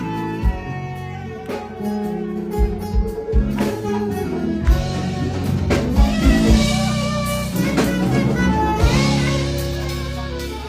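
Live pagode band playing an instrumental passage with a steady beat and no singing.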